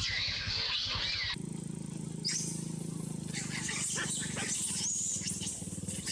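Long-tailed macaques screaming in high, wavering squeals as they fight and chase, over a low, rapid throbbing hum.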